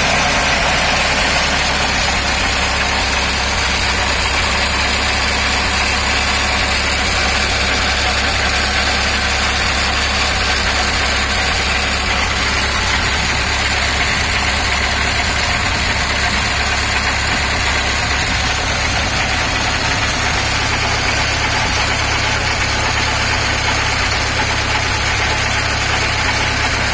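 Vintage Red Wing marine inboard engine running steadily at an even speed.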